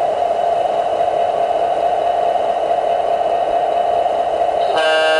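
ESU sound decoder in a garden-scale Union Pacific GP9 model locomotive playing a steady diesel engine sound through its speaker as the model rolls along the track. Near the end the decoder's horn starts, a held chord.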